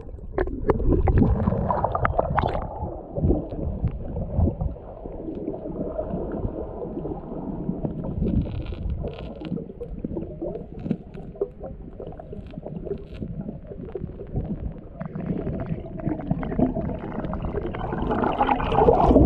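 Muffled underwater sound through the camera's waterproof housing: water gurgling and sloshing as a diver moves, with scattered faint clicks and knocks as green mussels are worked off a bamboo pole.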